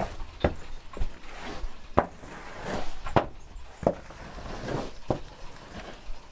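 Footsteps with irregular knocks and scuffs, a knock every second or so.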